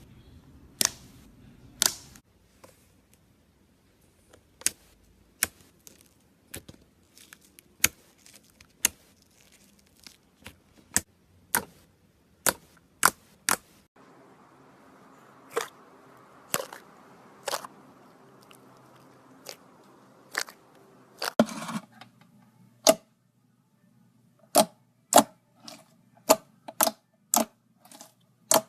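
Glossy slime being pressed and stretched by hand, trapped air popping in sharp clicks, irregularly at about one or two a second, with a quick cluster of pops a little past the middle.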